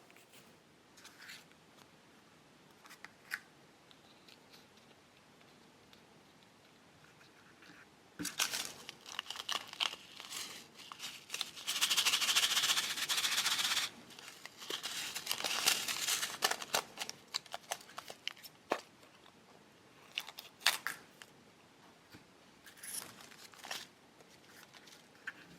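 Plastic packets of a Popin' Cookin' candy kit being handled and opened: dense crinkling and tearing of thin plastic, loudest about halfway through, with scattered sharp crackles and clicks before and after.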